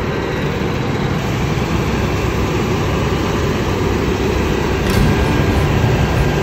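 New Holland combine harvester running steadily under load while cutting and threshing wheat, a continuous heavy machine noise with a brief click about five seconds in.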